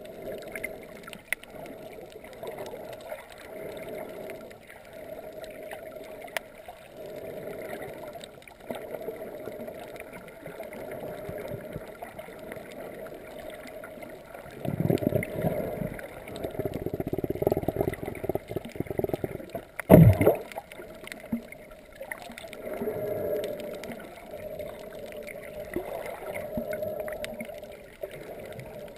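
Muffled underwater sound heard through a submerged camera: water swishing and gurgling over a steady low hum. About halfway through the water rushing gets louder for several seconds, followed by one sharp knock.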